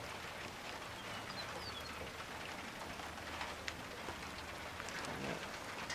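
Light rain beginning to fall: a steady faint patter with scattered drops ticking.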